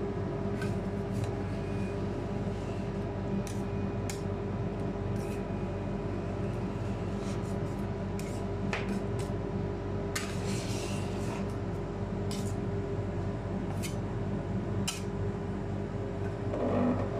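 Metal spatulas scraping and tapping on a steel ice-cream-roll cold plate, rolling up chocolate ice cream: scattered sharp clicks, with a longer scrape about ten seconds in, over a steady hum.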